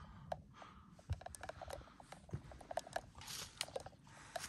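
A hiker's footsteps on a mountain trail: uneven crunching and scuffing steps with small clicks, a couple of dull footfalls, and a longer crunch near the end.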